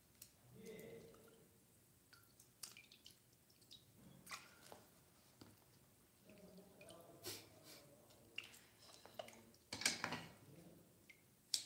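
Raw shrimp being peeled by hand: faint, scattered wet clicks and crackles as the shells are pulled off, the loudest about ten seconds in.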